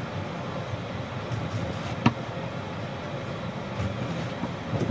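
Steady low rumble and hiss, with a sharp click about two seconds in and a fainter one near the end.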